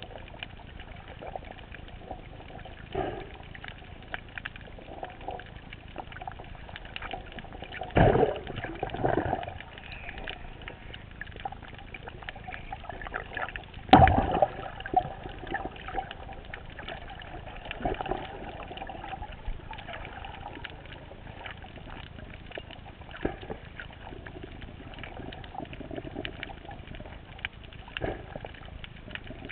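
Underwater sound picked up by a GoPro in its waterproof housing during a freedive: a steady muffled water hiss with frequent small clicks and crackles, and louder dull thumps about eight seconds in and again around fourteen seconds.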